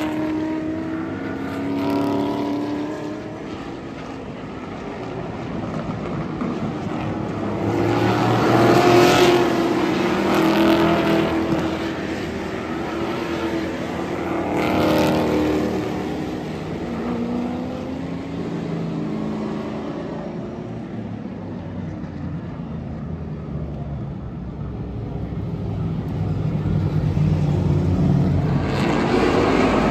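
Hot rod class short-track stock cars racing past through a turn, their engines rising and falling in pitch as each car goes by. The sound swells as the pack passes, eases as it moves off, and grows again near the end as the field comes back around.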